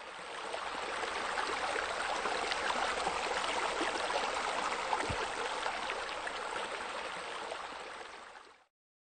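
Steady rushing of water spilling from a spa spillway into a pool, fading in at the start and fading out near the end, with a soft low thump about five seconds in.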